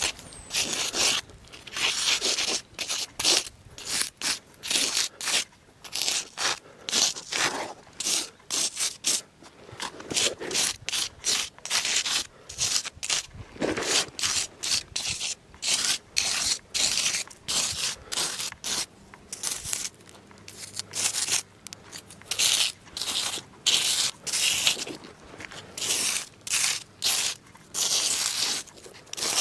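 Rubbing and scraping strokes on a rough stone surface, short and uneven, about two a second.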